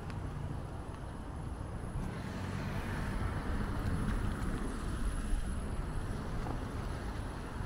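City street traffic noise, a steady hiss of cars on wet road that swells between about two and four seconds in, over a low rumble of wind on the microphone.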